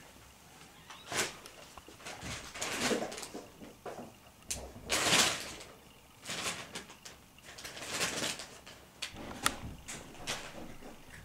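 Ragdoll kittens scuffling on a fabric sofa: irregular scratching and rustling of paws and claws on the upholstery as they wrestle and chase, loudest about five seconds in.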